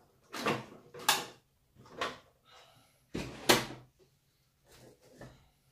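RC scale crawler trucks being slid and shifted by hand on a tabletop: several short scrapes and knocks, the loudest about three and a half seconds in.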